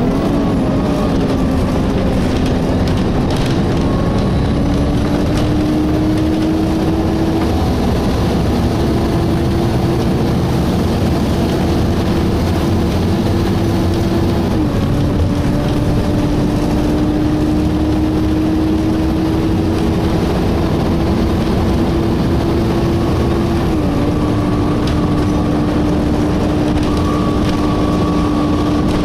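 Volvo B7TL double-decker bus under way, heard from the lower deck: a steady whine from its engine cooling fan over the engine and road rumble. The whine rises slowly in pitch and steps down suddenly twice, about halfway through and again near the end.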